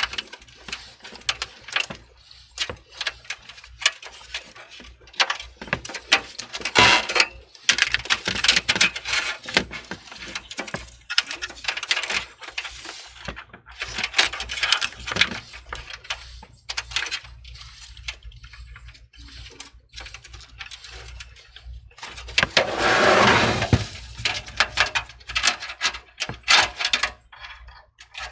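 Small plastic and metal parts of a desktop PC's front panel being handled: a string of irregular clicks, knocks and rattles, with a longer, louder scraping noise late on.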